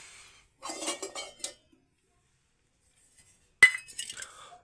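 Dishes clinking as they are handled: a short clatter about a second in, then one sharp clink near the end, the loudest sound.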